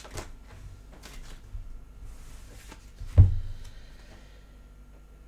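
A deck of tarot cards being shuffled by hand: soft card-handling clicks and rustle, with one heavier thump a little past three seconds in.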